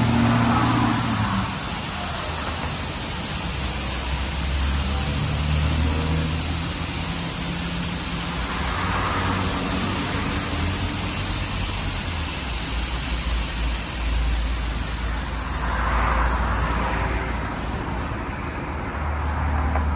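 D&S IQ 2.0 touchless car wash spraying high-pressure water over the car: a steady hiss over a low hum, swelling three times as the spray arm passes and thinning near the end.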